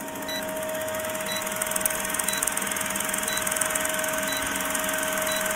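Old film-projector sound effect: a steady mechanical whirr and rapid clatter over a constant hum, with a short blip about once a second, pacing a film-leader countdown.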